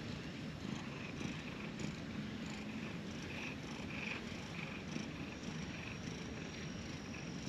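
Orange tabby cat purring steadily while being stroked on the head and back, a sign of contentment.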